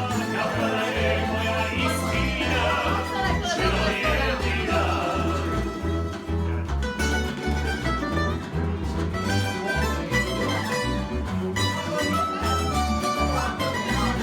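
Croatian tamburitza folk ensemble playing live: plucked tamburica strings over a stepping bass line.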